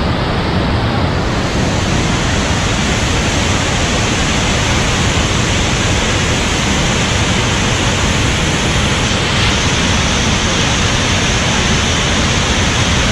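Palaruvi waterfall in full monsoon flow: a loud, steady rush of falling water, heard close enough that its spray reaches the microphone.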